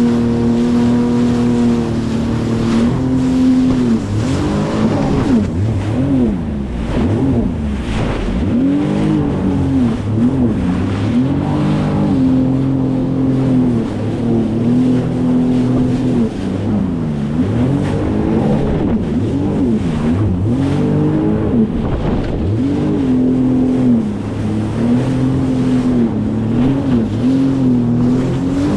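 A Sea-Doo FishPro Sport 170 personal watercraft running under way, its three-cylinder Rotax engine and jet pump loud and steady, the engine pitch repeatedly dipping and climbing back as the throttle is eased and opened.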